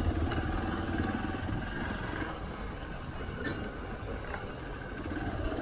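Steady engine and road noise from a moving vehicle driving past a bus close alongside, with a heavy low rumble.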